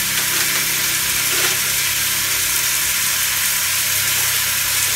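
Pig head roasting in a hot metal roasting pan, its fat sizzling with a steady hiss over a low, even hum.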